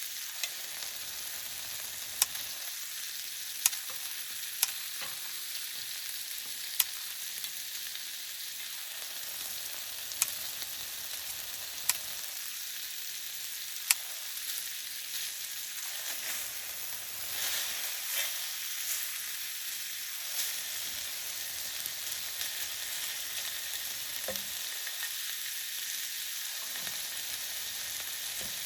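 Food frying in a pan, sizzling steadily, with sharp single pops of spitting oil scattered through the first half.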